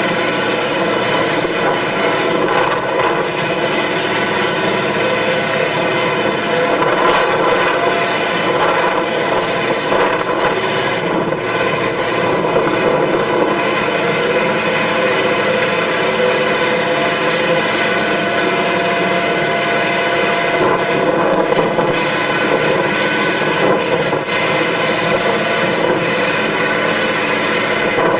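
Farm machine's engine running steadily under load, a dense, even mechanical drone with no pauses.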